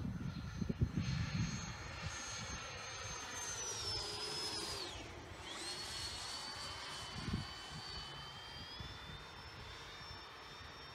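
Electric ducted-fan whine of a radio-controlled MiG-21 model jet flying past, a steady high whine whose pitch drops sharply about five seconds in as it passes and then holds lower as it moves away. Low rumbling buffets in the first two seconds.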